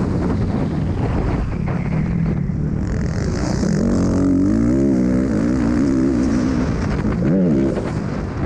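Single-cylinder four-stroke 450 motocross bike, a Kawasaki, ridden hard. Its engine revs rise and fall repeatedly as the bike slows for a corner and accelerates out again through the gears.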